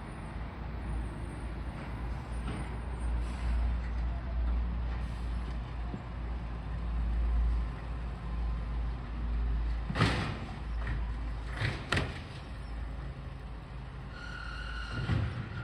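Garbage truck's engine running with a steady deep rumble, with a few sharp knocks about ten and twelve seconds in and a brief high-pitched tone near the end.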